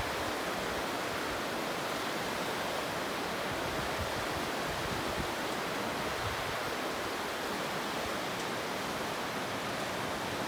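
Steady, even rush of a waterfall, unchanging throughout.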